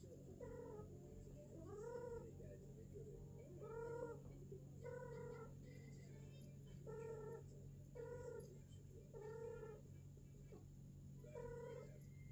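A domestic cat mating, giving a series of short, faint moaning calls, about eight in all, each lasting about half a second and some rising then falling in pitch.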